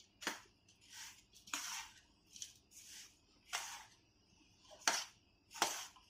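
Dry ladoo mixture of roasted urad and moong dal flour, sugar and dry fruits being stirred by hand in a vessel: about eight short scraping, rustling strokes, a little more than one a second.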